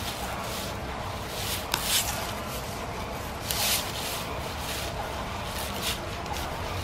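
Giant panda eating bamboo: leafy bamboo branches rustle and stalks crunch in several short bursts, over a steady low background rumble.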